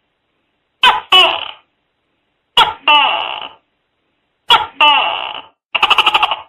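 Tokay gecko calling: three loud two-part 'tok-kay' calls, each a short sharp note followed by a longer falling note, about two seconds apart. Near the end comes a quick rattling run of about ten pulses.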